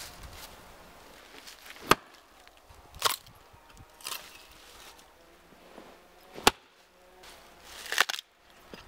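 Hatchet chopping into a log round to split it: about five sharp wooden strikes, a second or so apart. The last one near the end is longer and ragged.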